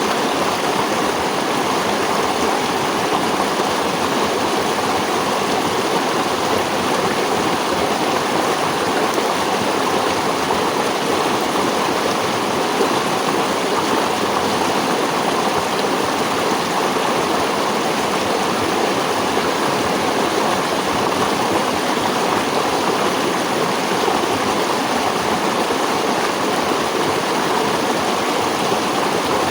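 Steady rushing of flowing water, a stream running over rocks, unchanging in level.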